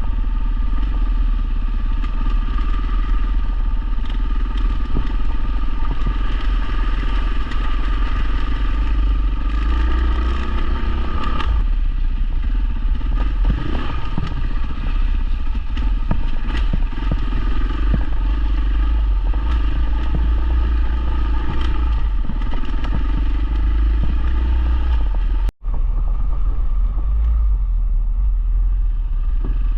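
Dual sport motorcycle engine running under way, its pitch rising and falling with the throttle and gear changes, over heavy wind rumble on the microphone. The sound drops out for an instant about three-quarters through, then goes on duller.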